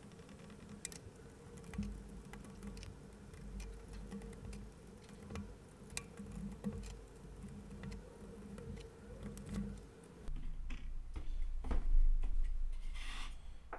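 Quick, irregular light clicks and taps of small laser-cut wooden shelf pieces being handled and glued, in sped-up playback over a faint steady hum. Heavier rubbing and handling noise near the end.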